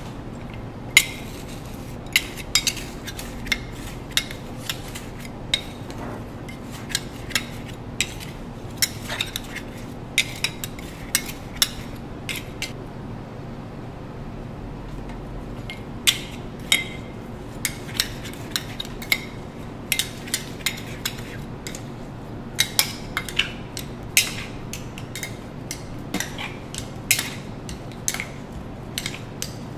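Two metal ice cream spades clacking and scraping on a frozen stone slab as ice cream is chopped and folded with mix-ins: sharp, irregular clinks, with a quiet spell of a few seconds about halfway.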